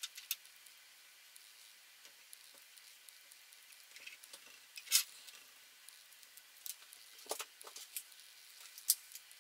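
Scattered light clicks and taps of small plastic battery-case parts being handled and pressed together around a metal tube, with the sharpest click about five seconds in.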